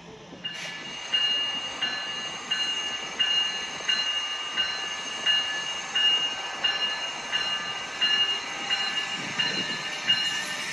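Railroad bell ringing in a steady rhythm, about three strikes every two seconds, starting about half a second in.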